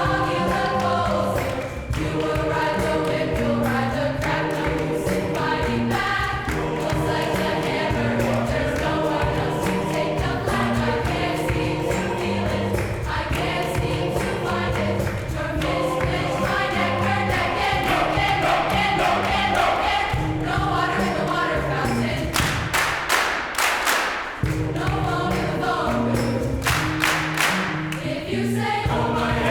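High school choir singing a choral arrangement in parts, with sustained chords over a low line. About three-quarters of the way through, and again shortly after, the singing thins and short runs of sharp percussive hits come in.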